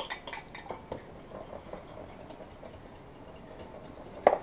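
A metal whisk stirring sauce in a glass bowl: several clinks against the bowl in the first second, then softer scattered ticks and scraping, and one sharp clink with a short ring about four seconds in.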